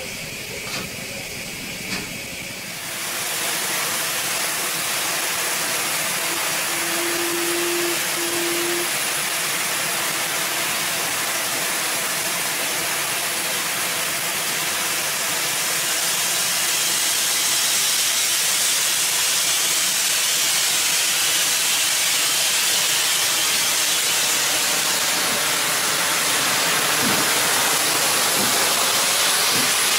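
LMS Coronation-class Pacific steam locomotive 6233 Duchess of Sutherland hissing steam. A steady loud hiss swells in about three seconds in and grows a little louder past the middle, with a brief low tone, broken once, about seven seconds in.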